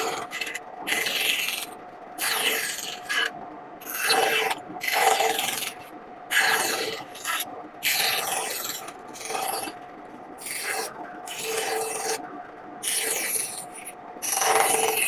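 Hand carving gouge cutting into a woodblock, a series of short scraping strokes at about one a second with brief pauses between them.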